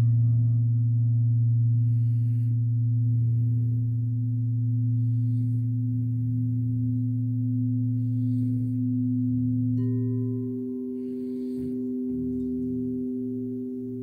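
Crystal singing bowls ringing in long, steady, overlapping tones. A deep tone fades about ten seconds in, just as a higher tone is struck and rings on.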